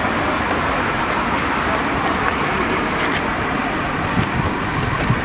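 Steady, dense din of a busy outdoor market: an even wash of noise with a traffic-like rumble and no clear single source.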